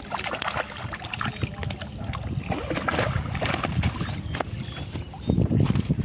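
A hooked fish splashing at the water's surface as it is reeled in and landed, with irregular splashes and knocks.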